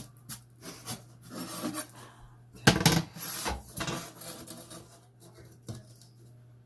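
Irregular scraping and rubbing strokes against wood, the loudest about three seconds in.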